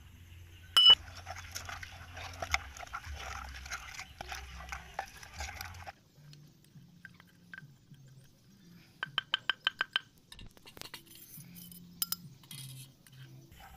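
Wet chili sauce being stirred and mashed in a clay mortar, a busy crackly mixing sound with small knocks, for about the first six seconds. After a quieter stretch, a quick run of about eight light clinks of a spoon against a ceramic bowl comes around nine seconds in, with a few more clinks near the end.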